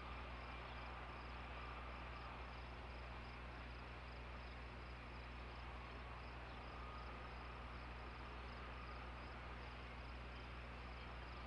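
Steady outdoor background from a nest-cam microphone: a low electrical hum under a wide hiss, with a faint high pulsing that repeats about two or three times a second. The incubating osprey makes no call.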